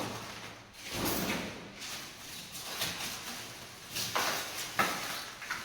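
Things being shifted and set down: scraping, then a few sharp knocks near the end.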